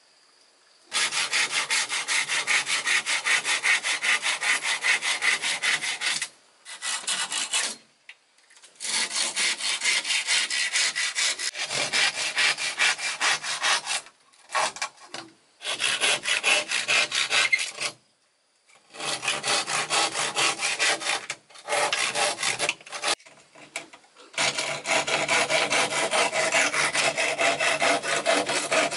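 Wood being sawn, in several long bouts of rapid rasping strokes with short pauses between them.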